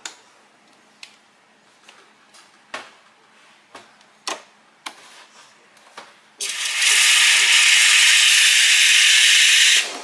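Steam wand of a SMEG EGF03 espresso machine purging after milk steaming: a loud, steady hiss of open steam that starts suddenly about six seconds in and cuts off just before the end. Before it, a handful of light clicks and knocks as the milk pitcher is handled.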